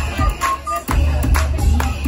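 Upbeat music with a steady beat and heavy bass.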